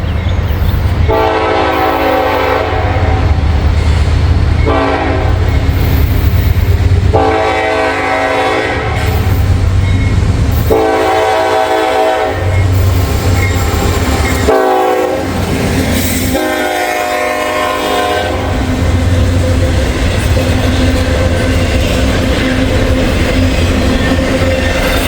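Diesel locomotive air horn sounding a string of about six blasts, long and shorter, at a grade crossing over the low rumble of the engine. In the last few seconds the freight train's cars roll past with a steady rumble and wheel clickety-clack.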